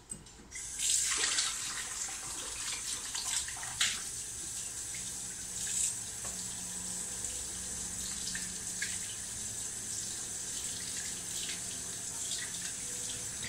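Kitchen tap running into the sink as dishes are rinsed under it: a steady hiss of water that starts about half a second in, with a few short knocks of crockery being handled.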